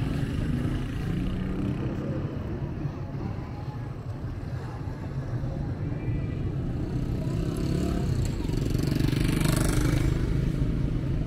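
Street traffic: a steady low rumble of cars and motorcycles, swelling louder about nine seconds in as a vehicle passes close.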